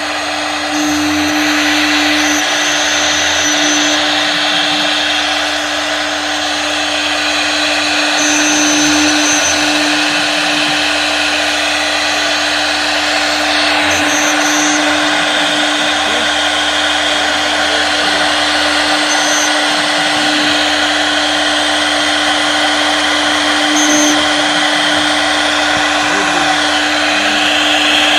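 CNC wood router running continuously: the spindle holds one steady whine while the bit cuts wood, with a dense hiss of cutting over it.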